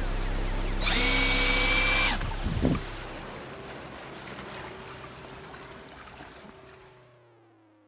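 Homemade 18-volt Ryobi battery-powered outboard motor running, its electric motor whining over water churning from the prop. About a second in, the whine grows louder for about a second, and there is a single knock a little later. The sound then fades away steadily to near silence.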